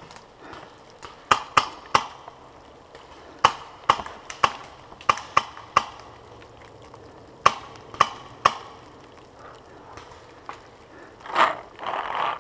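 Paintball markers firing during a game: sharp single pops at irregular spacing, some in quick runs of two or three. A louder, rougher noise comes in briefly near the end.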